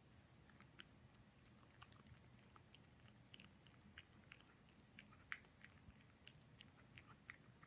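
A cat licking up and chewing food crumbs off a wooden tabletop. The sound is faint, irregular small wet clicks and smacks, a few each second.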